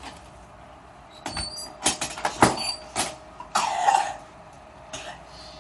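Several sharp clicks and pops as the neck is adjusted at the base of the skull in a chiropractic occipital lift, followed by a short cough-like breath about halfway through.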